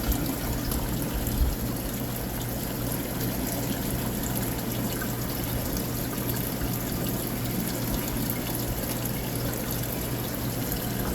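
Steady trickling and rushing of water from aquarium tank filters and pumps, over a constant low hum.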